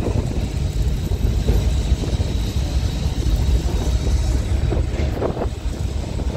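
Open-top Blackpool Boat tram running along the track: a steady low rumble from the moving tram, with a faint high whine through the middle.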